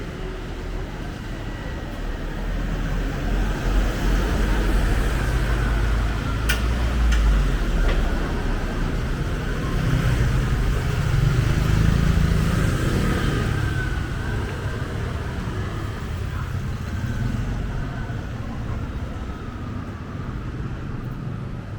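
Busy city street traffic: a steady rumble of vehicle engines and tyres, swelling twice as vehicles pass close by.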